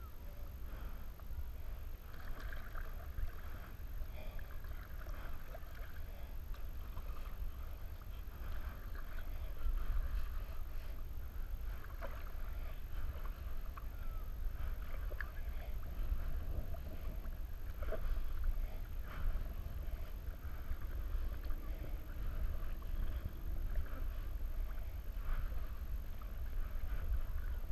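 Kayak paddling: the paddle blades dipping and splashing, with water lapping and dripping around an inflatable kayak, over a steady low rumble.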